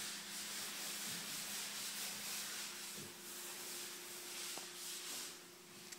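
Double-sided-tape applicator being run along masking tape, the tape unwinding and rubbing down as it is laid: a steady rough hiss that swells and eases, over a faint low hum.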